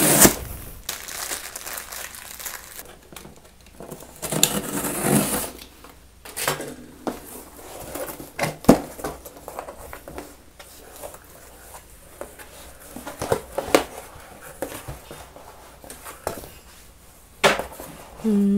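Plastic packaging and tape being torn off a cardboard shipping box, then the box's cardboard flaps being pulled open and handled. It is an irregular crinkling, tearing and rustling with scattered clicks, loudest right at the start and again about four to five seconds in.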